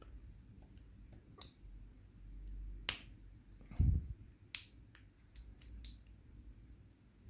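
Scattered sharp clicks of small metal tools on a disassembled padlock, one every second or so, with a dull knock just before four seconds in.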